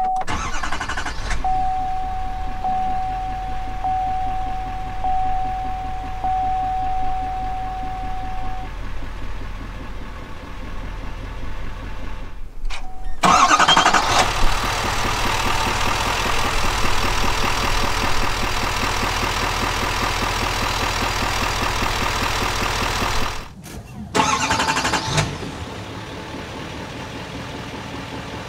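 Duramax 6.6-litre turbo-diesel V8 of a 2021 Chevrolet Silverado 2500HD starting up and settling into a steady idle. Early on, heard from inside the cab, a steady chime tone runs for several seconds. About 13 seconds in the idle is louder, with a strong low rumble close to the open engine bay. Near the end it is quieter at the exhaust tailpipe.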